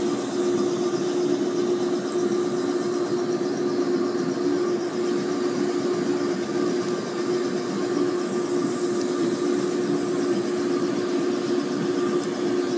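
Surgical suction aspirator running with a steady hum and hiss.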